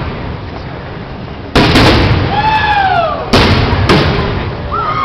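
Aerial fireworks shells bursting: three sharp bangs, about a second and a half in, about three and a half, and just under four seconds in, each trailing off. Between the first two, a drawn-out pitched sound rises briefly and then falls.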